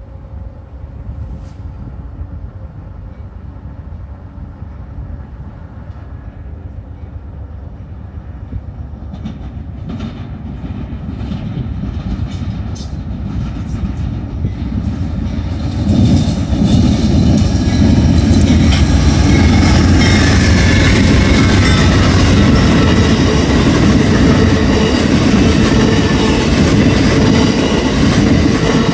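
Amtrak Sunset Limited (Train 1) passenger train approaching and then passing close at speed. A low rumble grows steadily louder, jumps sharply about halfway through, and stays loud as the locomotive and cars run past on the rails.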